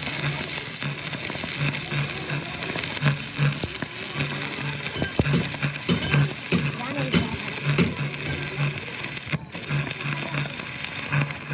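Electric arc welding on a truck axle tube: a steady crackling, sizzling hiss, with a low hum that pulses on and off a few times a second and a few short knocks in the middle.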